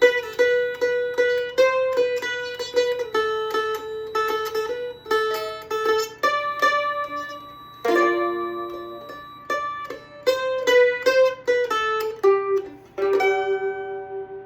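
Loar LM-310F F-style mandolin played solo: a bluegrass melody picked note by note with a few double stops, ending on a held note that rings out and fades.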